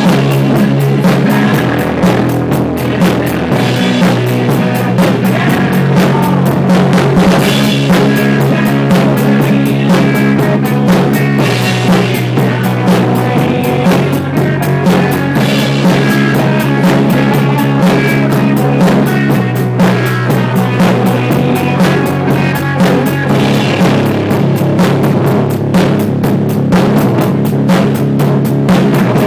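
Rock band playing a song live: electric guitars and bass over a drum kit keeping a steady beat, with the cymbals and drums close and prominent.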